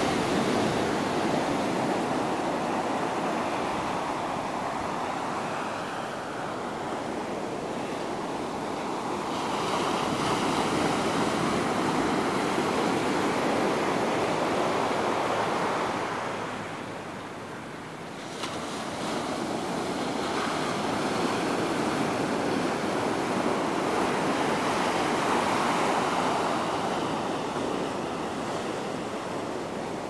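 Ocean surf breaking on a sandy beach: a continuous wash of waves that swells and ebbs, dipping briefly a little past halfway before building again.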